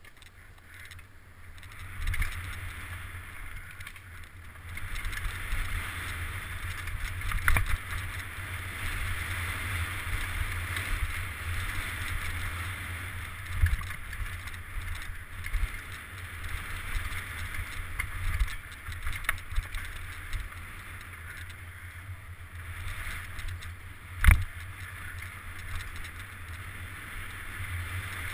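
Hardtail mountain bike ridden fast down a dirt woodland trail, heard from a helmet-mounted camera: a steady rumble and hiss of tyres and passing air, with sharp knocks and rattles as the bike hits bumps, the loudest about 24 seconds in.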